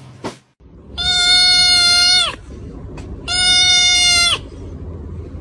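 A tabby kitten crying out twice, each cry a loud, high-pitched call held at one pitch for over a second and dipping at the end, while a finger presses on its head.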